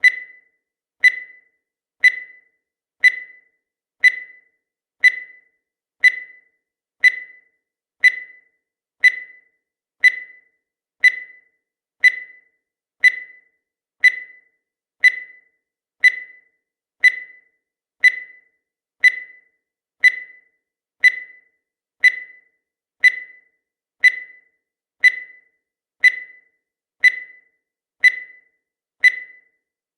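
Countdown timer sound effect: a short, high electronic beep once a second, each one fading quickly into silence before the next.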